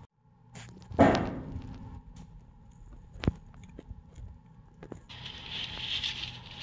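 Knocks and clicks of tools and metal parts being handled during an oil change. The loudest is a sharp knock with a short ring about a second in, followed by a sharp click in the middle. A steady hiss begins about five seconds in.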